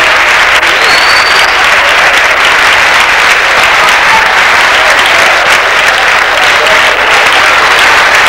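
A large crowd applauding, loud and steady throughout.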